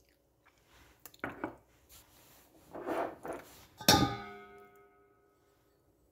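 Soft rustling of sugar and dish handling as a small ceramic ramekin is tipped over flour in a stainless-steel bowl, then, about four seconds in, a single sharp clink of the dish against a hard surface that rings on for about a second.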